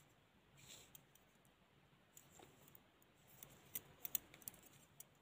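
Faint light clicks and taps of double-pointed knitting needles as stitches are worked, with a few sharper clicks three to four seconds in.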